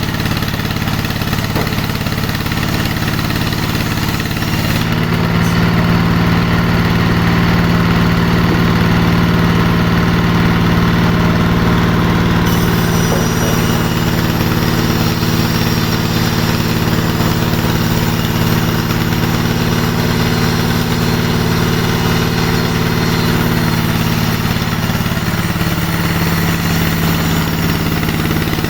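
Engine of a wood-cutting saw machine running steadily, a little louder from about five seconds in, with a falling tone near the end.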